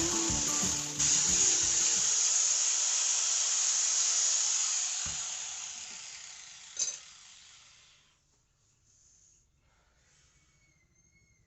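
Hot steel knife blade being quenched, sizzling loudly as it goes in about a second in, then the sizzle dies away over several seconds. There is a single sharp click partway through.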